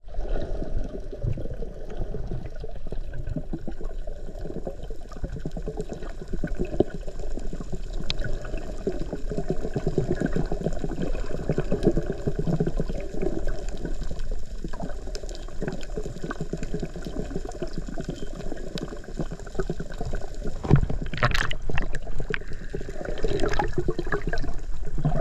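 Water bubbling and gurgling in a dense, continuous crackle, louder for a moment a little over twenty seconds in.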